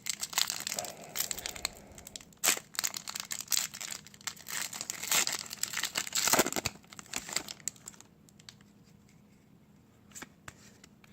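A foil trading-card booster pack being torn open and its wrapper crinkled, dense crackling for about eight seconds, then much quieter with a few faint ticks as the cards are handled.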